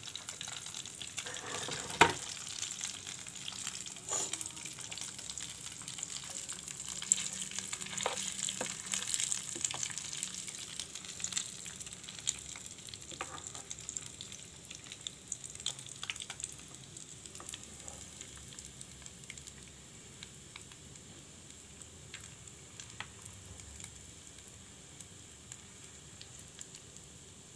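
Hot cooking oil with leftover flour-batter crumbs sizzling and bubbling in a wok, with a sharp click about two seconds in and scattered smaller crackles. The sizzle slowly dies down over the second half.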